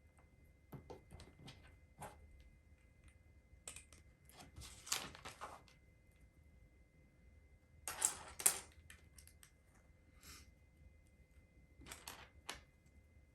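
LEGO pieces being handled: small plastic clicks and taps with short bursts of rustling, loudest in three clusters about four, eight and twelve seconds in.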